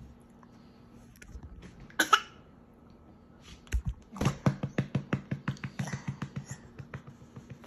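A baby's cough, one loud burst about two seconds in, then a quick run of short sharp sounds, about five a second, fading away.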